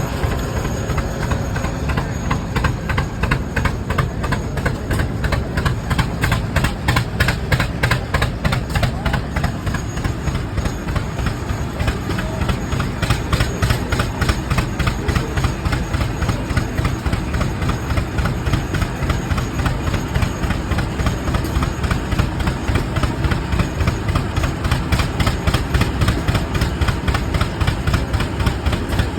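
Rumely OilPull tractor two-cylinder kerosene engines running steadily, with a quick, even rhythm of exhaust beats.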